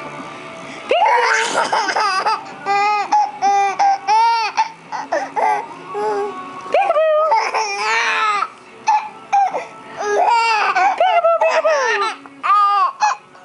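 Baby laughing in several bouts of quick, high-pitched giggles that start about a second in, with short pauses between bouts.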